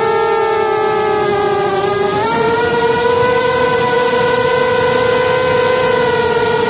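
Small drone's electric motors and propellers heard from on board: a steady, loud buzzing hum with a high whine above it. The pitch dips slightly, then steps up a little just over two seconds in and holds.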